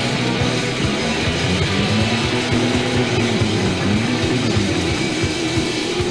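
Punk rock song playing: electric guitar over a steady drum beat, with a wavering held note in the second half.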